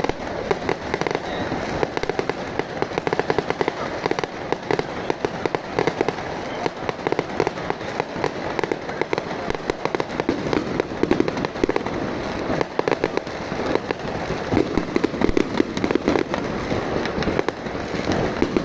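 Fireworks and firecrackers going off in a dense, unbroken run of rapid crackles and small bangs, with louder pops scattered through.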